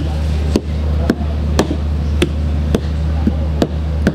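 Background music with a steady low bass and a sharp percussive tick about twice a second.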